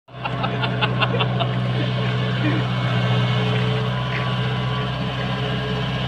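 Kubota combine harvester's diesel engine running steadily as the machine drives along the road, an even deep hum.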